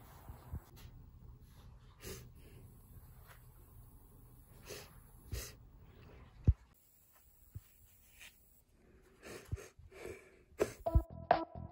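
Soft handling noises of small cardboard medicine boxes turned and shifted in the hand: scattered light rustles and clicks, with one sharp low knock about six and a half seconds in.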